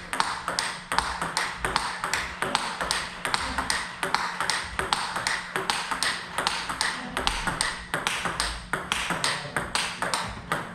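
Table tennis rally: a plastic ball is struck back and forth by rackets fitted with a T-Mount rubber under test, and it bounces on the table. The result is an unbroken run of sharp clicks, several a second.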